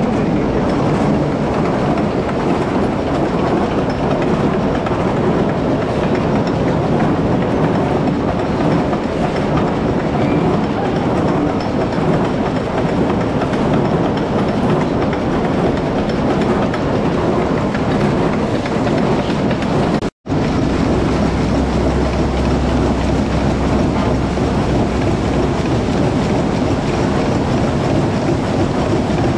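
Carrot-washing plant running: a rotating drum washer tumbling carrots, with a steady clattering rattle and rushing water. It breaks off for an instant about two-thirds through, then carries on with a deep hum added underneath.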